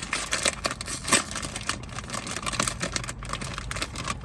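Crinkly plastic popcorn snack bag being handled and opened, a dense run of irregular crackles and rustles.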